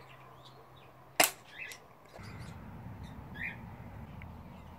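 A single sharp crack from a BB pistol firing about a second in, with small birds chirping now and then. From about halfway a low rumble comes in and runs on.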